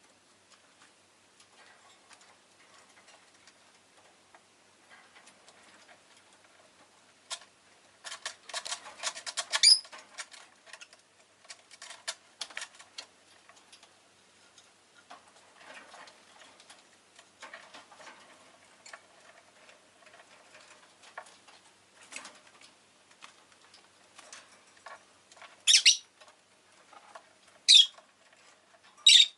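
Peach-faced lovebird making scattered clicking and scratching sounds, busiest about a third of the way in. Near the end come three short, shrill calls.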